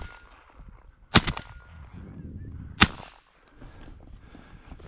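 Two shotgun shots about a second and a half apart, fired at a flushing pheasant, both misses.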